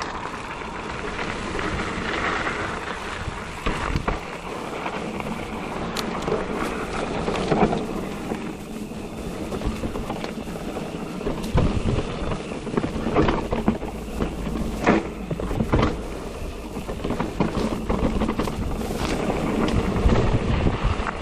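Giant Reign E+ electric mountain bike being ridden on a trail: a steady rush of tyre and wind noise on the microphone, broken by repeated sharp knocks and clatters from the bike.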